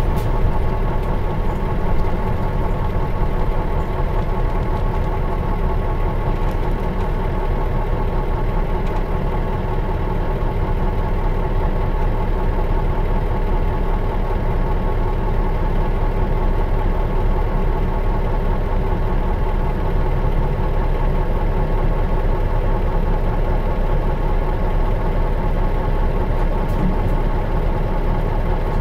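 Diesel engine of a 2002 Mitsubishi Fuso Aero Bus KL-MS86MP idling steadily, heard from inside the bus.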